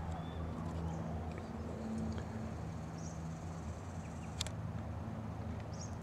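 Quiet street ambience: a faint steady low hum, with a few faint, distant bird chirps and a single sharp click about four and a half seconds in.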